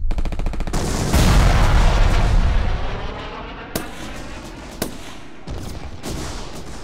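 Gunfire: a rapid burst of machine-gun fire, then a louder rush of fire that dies away over about two seconds, followed by single sharp shots about a second apart.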